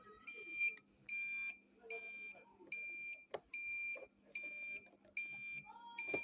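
Electronic beeping from the incubator controller's buzzer: short, high, identical beeps repeating evenly, a little more than one a second, over a faint steady hum.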